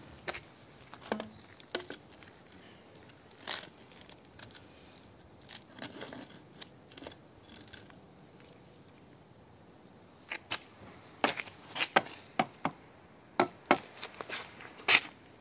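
Bricks tapped with a trowel to set them plumb against a spirit level: scattered sharp knocks, then a quicker run of them in the last few seconds.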